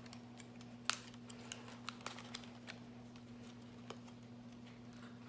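Scattered small clicks and taps, the sharpest about a second in, from handling eyeshadow packaging, over a steady low hum.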